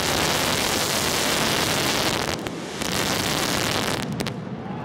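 A continuous barrage of mascletà firecrackers, so loud that the camera's audio overloads into a dense, hissing roar of noise. It eases briefly about two and a half seconds in and again near the end, where separate bangs stand out.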